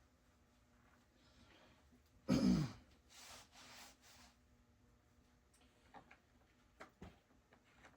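A person clearing their throat once, followed by a couple of soft breaths and a few faint clicks of handling.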